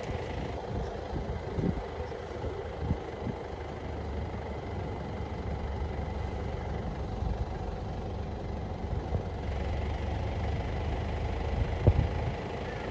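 Vehicle engine idling steadily, a low rumble with a faint steady hum, with a few short knocks, the loudest near the end.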